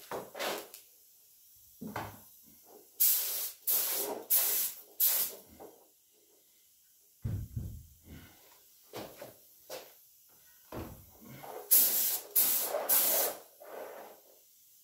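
Compressed-air paint spray gun hissing in short bursts while spraying primer onto tractor wheel weights: about four bursts a few seconds in and three more near the end. In between come a few dull thumps and shuffling as the weights are handled.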